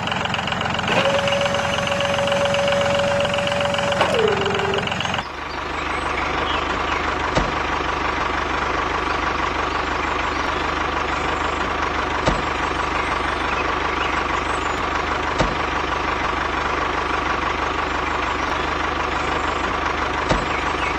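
Tractor engine running steadily. From about a second in a held tone sounds over it, then slides down in pitch shortly after four seconds. The sound changes abruptly about five seconds in, and the engine then runs on evenly with a few faint clicks.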